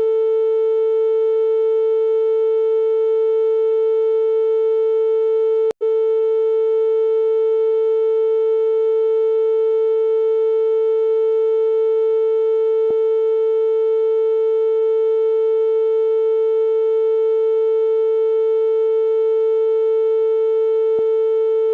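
A synthesized 'ear unclogging' tone: one steady, unchanging mid-pitched electronic tone with fainter higher overtones. It cuts out for an instant about six seconds in.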